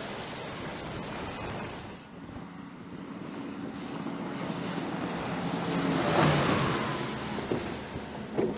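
Engine and propeller drone of an E-2D Hawkeye's twin turboprops. The level dips about two seconds in, then swells to a peak around six seconds in as the aircraft comes by, and fades again.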